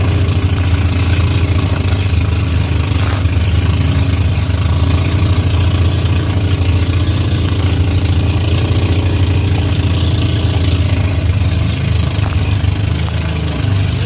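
Motorised outrigger boat (bangka) under way: its engine runs steadily with a low hum, over the rush of water against the hull and wind.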